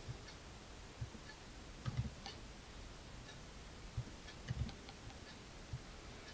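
Faint computer keyboard keystrokes and mouse clicks: scattered single taps about a second apart, with a couple of short clusters of quick taps.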